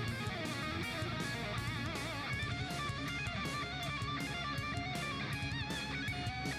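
Background music led by electric guitar, with a steady beat.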